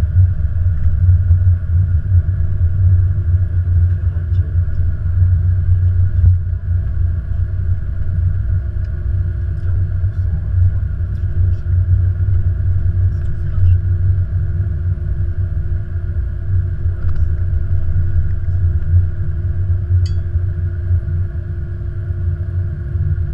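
Flight-deck noise of an Airbus A330-200 on its landing rollout: a loud, steady low rumble with a constant hum over it, easing slightly as the aircraft slows.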